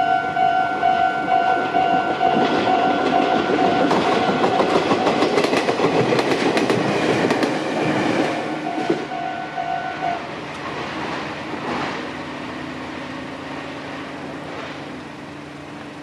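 Japanese level-crossing warning bell ringing steadily while a Meitetsu commuter train passes, its wheels clacking over the rail joints. The bell stops about ten seconds in, and the train's rumble fades as it moves away.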